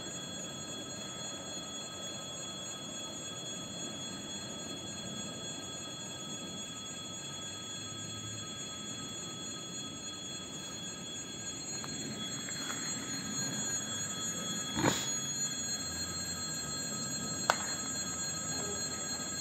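Railway level-crossing warning bell ringing continuously as a steady electric ring. A low rumble builds from about twelve seconds in, with two sharp knocks near the end.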